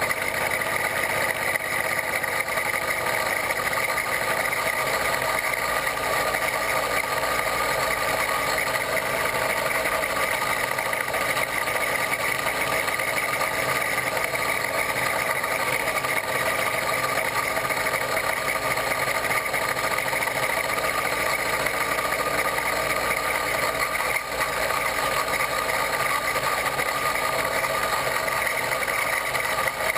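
A 66/80cc Chinese two-stroke bicycle engine kit running steadily while the bicycle rides along, with an even, unbroken drone.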